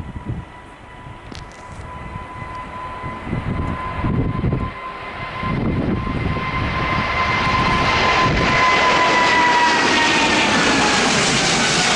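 Boeing 777-300ER's twin GE90 turbofans at takeoff thrust as the airliner lifts off and climbs past. It is a steady jet whine over a growing rush that gets much louder through the first two-thirds, then the whine drops in pitch near the end as the aircraft goes by.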